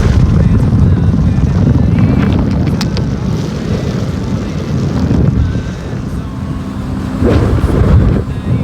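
Boat engine running as the boat crosses the bay, under heavy wind buffeting on the microphone.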